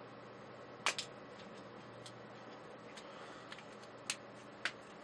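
Scattered small sharp clicks and taps, about seven of them, the loudest about a second in, from hands handling the camcorder and its micro SD card.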